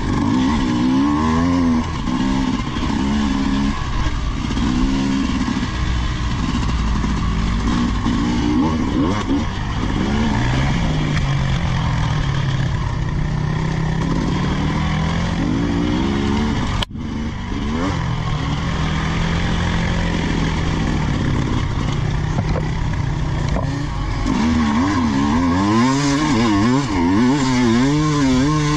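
Off-road motorcycle engines revving up and down, their pitch rising and falling over and over. There is a brief break about two-thirds of the way through.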